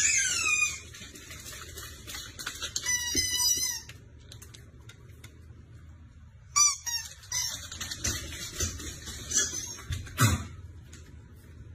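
Animal calls in several bouts: high-pitched calls sliding down in pitch at the start, a cluster of calls about three seconds in, and more short calls from about six and a half to ten seconds in.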